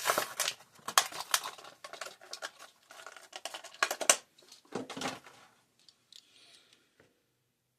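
A toy car in plastic blister packaging being handled: a quick run of sharp plastic clicks and crinkles that dies away about five seconds in.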